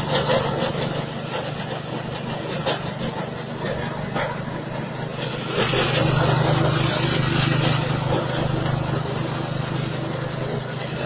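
Straw and grass chopper machine running on its 6.5 hp engine, a steady hum with rattling noise over it and a few short knocks. It grows louder about six seconds in.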